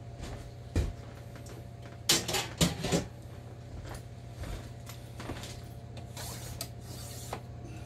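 Kitchen handling noises: a single knock about a second in, then a short cluster of clicks and knocks around two to three seconds in, with a few fainter knocks later, over a steady low hum.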